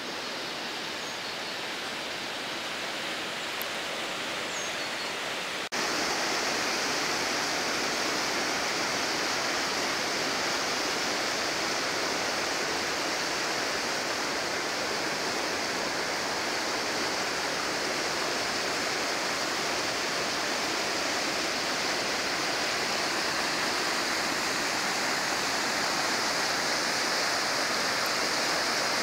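A river's water rushing over rocks, a steady, even rush. About six seconds in it jumps abruptly to louder and closer.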